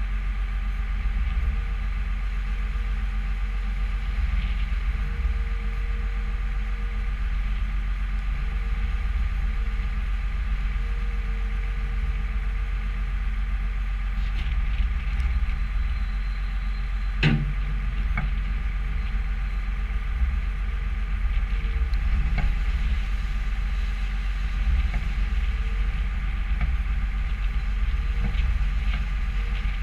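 New Holland skid steer's diesel engine running steadily, with a single sharp knock about halfway through.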